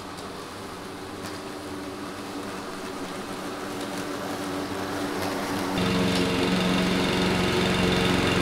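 Kobalt 80V battery self-propelled lawn mower running as it cuts grass: a quiet, steady hum that grows slowly louder as it comes closer. About six seconds in it gives way abruptly to a gas-powered push mower's engine running, much louder, with a steady low drone.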